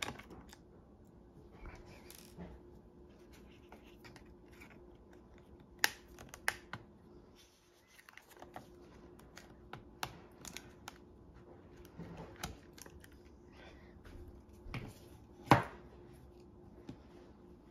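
Scattered small clicks, taps and scrapes of fingers and a thin pry tool working the internal battery of an opened Lenovo x240 laptop loose, with a sharper knock near the end as the battery comes out.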